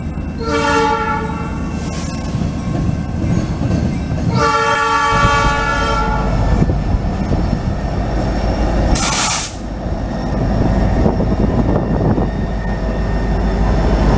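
Norfolk Southern diesel freight locomotive sounding its multi-note horn: a short blast, then a longer one about four seconds in, over the steady low rumble of the engine and the passing train. A brief loud hiss comes about nine seconds in.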